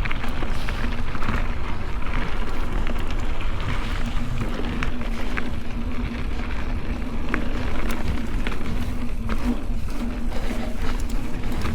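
Mountain bike riding down a dirt trail: tyres rolling over dirt and rock with scattered clicks and rattles from the bike, under a steady hum and wind rumble on the microphone.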